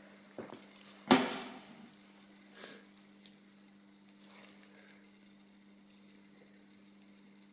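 A few knocks and a sharp click of metal parts or tools being handled on a workbench during reassembly of a wiper motor. The loudest knock comes about a second in and rings briefly, over a steady low hum.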